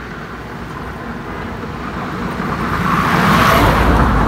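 A car driving past close by: its road and engine noise builds over a couple of seconds and peaks near the end.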